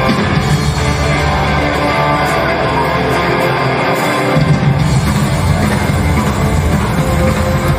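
Live rock band playing electric guitar, upright double bass and drums, with no vocals. The bass end gets heavier about halfway through.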